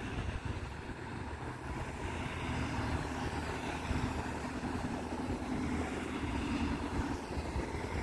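Cars passing on a road over a steady low rumble of wind on the microphone, with a car's hum swelling and fading in the middle.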